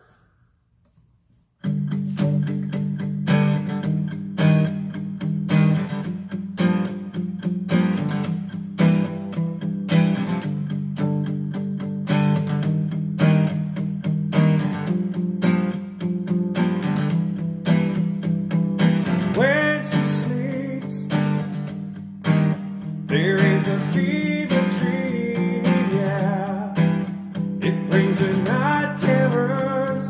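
Acoustic guitar, capoed, strummed in a steady rhythm, starting a little under two seconds in after a brief silence. A man's voice sings over it at times in the second half.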